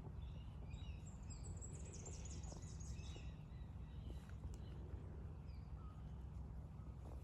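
Small birds chirping, with a quick run of high twittering notes between about one and a half and three and a half seconds in, over a steady low rumble.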